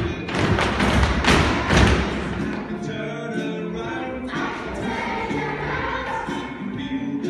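A group of young children singing a song together over music. Several loud thumps come in the first two seconds, then the singing carries on steadily.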